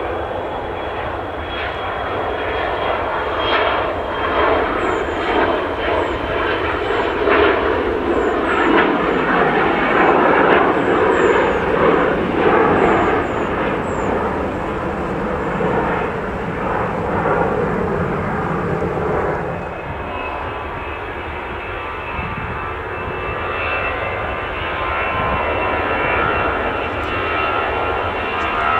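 Twin turbofan engines of a business jet at takeoff power as it rolls down the runway and climbs away, growing louder to a peak around ten to twelve seconds in. About twenty seconds in the sound changes suddenly to a somewhat quieter airliner jet engine with a steady high whine, from an Airbus A319 on the runway.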